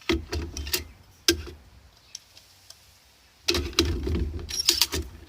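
Handling noise from a Swiss Army Volcano stove being packed up: a few sharp clicks and knocks of its metal parts, a pause, then a busier run of clicking and rattling from about three and a half seconds in.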